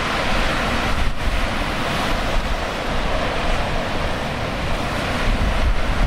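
Heavy typhoon surf breaking and churning in a steady roar, with gusty wind buffeting the microphone, its low rumble growing stronger near the end.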